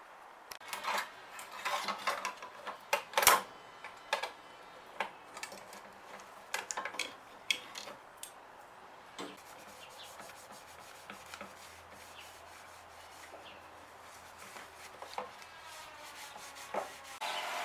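Irregular rubbing and scraping with scattered sharp clicks and knocks of hand work on small parts, busiest and loudest in the first few seconds and sparser after.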